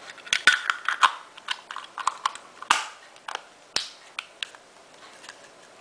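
Irregular sharp plastic clicks and taps from handling a small clear plastic container with a clip-tab lid. The clicks come thickly in the first three seconds, a few of them louder, and grow sparser toward the end.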